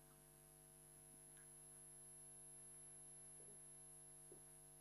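Near silence with a faint steady electrical hum: the live phone link has cut out.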